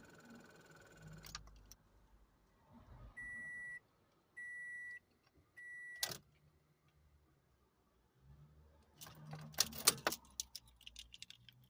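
Inside a 2014 Scion xB that will not start: three short electronic chime beeps, then a single sharp click, then a burst of rapid rattling clicks near the end, with no engine catching. The clicking on trying to start is the car's no-start fault.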